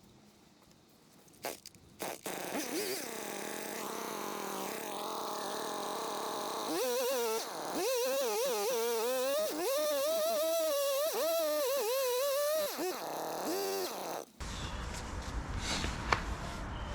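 Husqvarna 572XP two-stroke chainsaw ripping a log lengthwise, its engine note wavering up and down as the chain loads in the cut. It comes up about two seconds in after a couple of clicks and is loudest in the middle. About fourteen seconds in the sound changes abruptly to a rougher, lower running noise.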